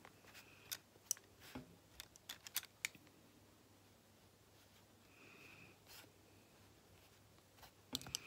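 Faint, scattered light clicks and taps of paintbrushes being handled and put down, mostly in the first three seconds.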